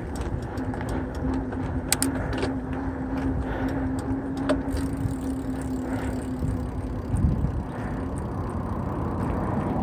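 Mountain bike rolling along: wind noise on the microphone and tyre noise, with scattered sharp clicks and rattles and a steady hum that fades out about seven seconds in.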